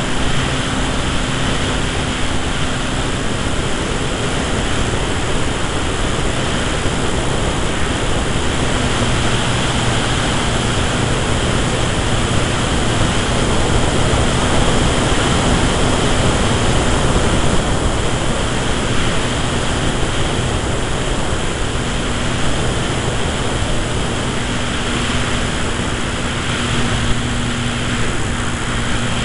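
Electric motor and propeller of an 80-inch-wingspan RC Tiger Moth model running steadily in flight, a low even hum under a heavy rush of wind over the onboard camera's microphone.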